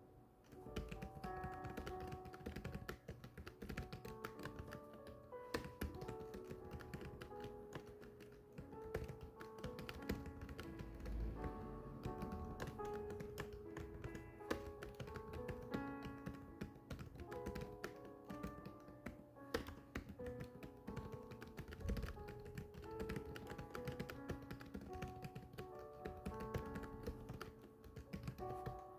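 Steady, rapid keystrokes of typing, a dense run of short taps, over background music with held melodic notes.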